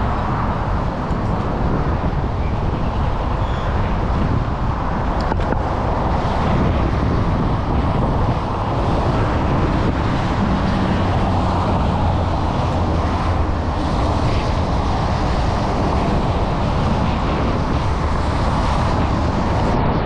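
Strong wind blowing across the microphone of a camera on a moving bicycle: a steady, loud deep rushing, mixed with road traffic.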